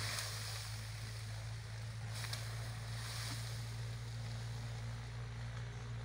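Tractor engine running steadily while pulling a rotavator: a constant low drone with a steady hiss over it.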